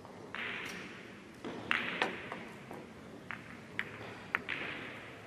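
Billiard balls on a carom table: the cue ball is struck, then a run of sharp clicks follows as the balls knock against each other and the cushions, several over about three seconds.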